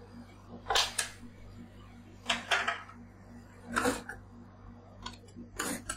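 Metal spatula scraping and chopping freezing Pocari Sweat on a stainless steel rolled-ice-cream cold plate, in several short separate strokes, over a low steady hum.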